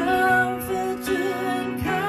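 Slow worship song: an electronic keyboard holds sustained chords while a woman sings, the chord changing near the end.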